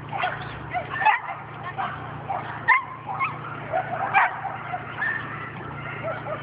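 Dogs barking and yipping in short repeated calls, with sharper, louder barks about a second in, near the middle and again past four seconds, over a steady low hum.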